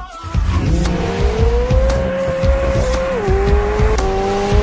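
McLaren 765LT's twin-turbo V8 accelerating through its titanium quad-exit exhaust. The engine note climbs, drops with an upshift about three seconds in, then climbs again.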